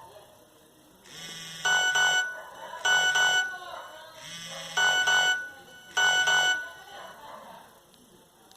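Nokia 1110 mobile phone playing a monophonic ringtone: four short bursts of beeping electronic notes in two pairs, with a short buzz just before each pair. It stops a little over halfway through.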